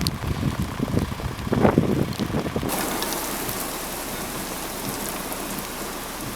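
Heavy rain falling in a steady, even hiss from just under three seconds in. Before it, for the first couple of seconds, there are low, irregular rumbling gusts.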